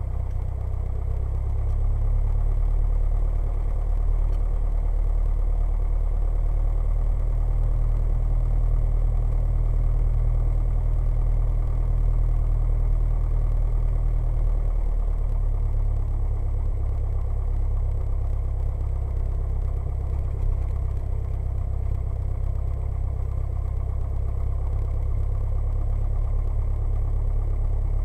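Cessna 172's piston engine and propeller running at low taxi power, a steady low drone heard from inside the cockpit, shifting slightly in pitch about halfway through.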